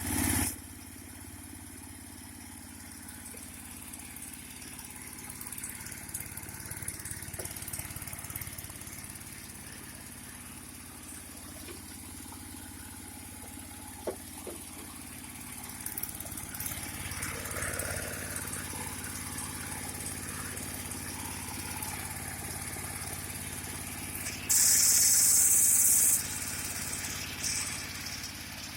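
Small engine of a river gold-mining machine running steadily with a low hum. A loud hiss cuts in for about a second and a half near the end.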